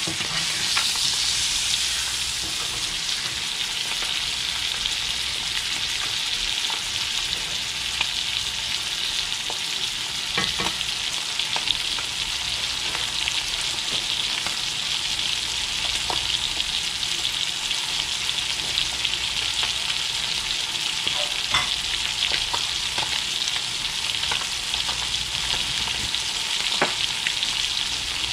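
Blackened fish fillets frying in butter and oil in a very hot cast-iron skillet: a steady sizzle with scattered pops and spatters.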